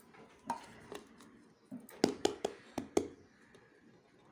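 Steel plate and metal cooking pot clinking and knocking together as a baked semolina cake is flipped out onto the plate. A few light clicks come first, then a quick run of about six sharp metal knocks about two seconds in.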